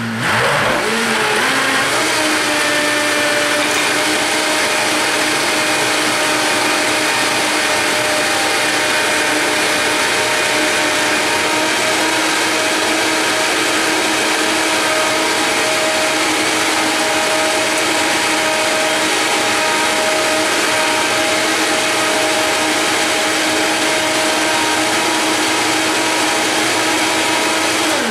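High-speed countertop blender switched on and blending a thick green smoothie: the motor spins up with a rising pitch over the first couple of seconds, then runs at full speed with a steady whine. It winds down as it is switched off at the very end.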